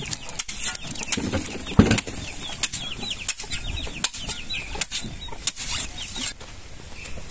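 Long knife chopping forage cactus pads (palma) into a cattle trough: about seven sharp chops, roughly one every three-quarters of a second, stopping near the end.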